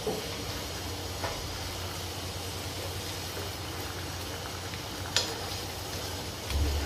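Chicken pieces in thick masala sizzling in a nonstick pan while a steel ladle stirs them, with a few sharp clicks of the ladle against the pan, the loudest about five seconds in. A low thump comes near the end.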